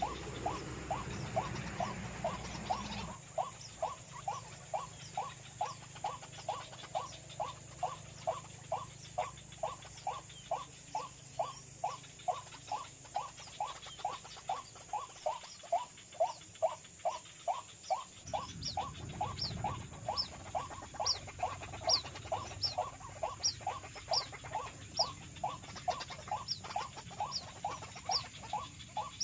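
Calls of the white-breasted waterhen (ruak-ruak): a short note repeated monotonously about two times a second. About two-thirds of the way in, a second series of higher, thinner notes joins in. A low rumble runs under the first few seconds.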